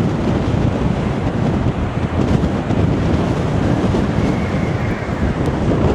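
Strong storm wind buffeting the microphone: a loud, steady rushing rumble that swells and dips with the gusts.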